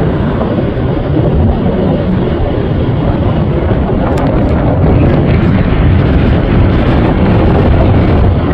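Jet aircraft engine noise: a loud, steady low rumble, growing slightly louder about five seconds in, with wind buffeting the microphone.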